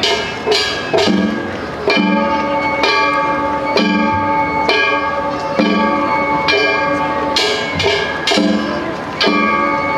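Japanese festival float music (hayashi): metal hand gongs (kane) clanging about once a second and ringing on, over taiko drum beats.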